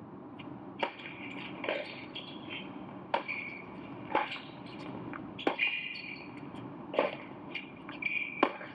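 Tennis ball struck back and forth in a doubles rally: about eight sharp racket-on-ball hits, starting with the serve, with short high shoe squeaks on the indoor hard court between shots.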